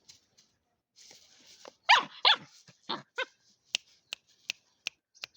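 German shepherd puppy, about a month old, barking in high-pitched yaps: two loud ones about two seconds in, then two weaker ones. A run of sharp clicks follows, about two or three a second, to the end.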